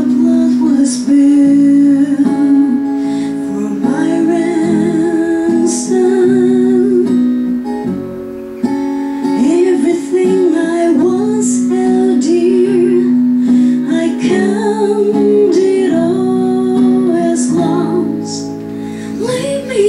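Acoustic and electric guitars playing a worship song together, with a voice singing the melody with vibrato.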